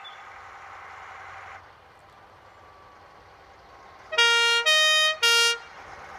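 Fire engine's two-tone warning horns sounding from about four seconds in: three loud blasts of about half a second each, stepping low, high, low in pitch.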